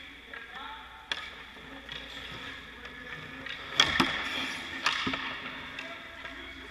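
Ice hockey shots during goalie practice: sharp cracks of stick and puck and knocks of the puck against the goalie's pads, a few of them, the loudest about four seconds in and another pair about a second later, over a steady hiss.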